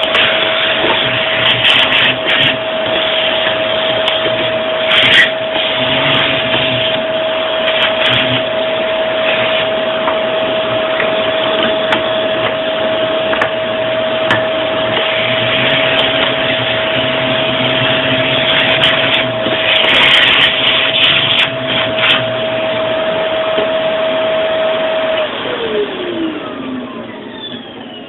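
A handheld rotary tool running at a steady high whine, grinding down the rivets of a Swiss Army knife, the grinding noise swelling and fading as it bites into the metal. About 25 seconds in it is switched off and the whine falls away as the motor spins down.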